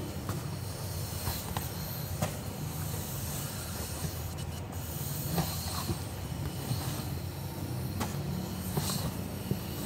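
Rubber inner tube and flap being dragged out of a truck tyre by hand: rubber rustling and scraping against the tyre's inside, with a few light scattered clicks, over a steady low rumble.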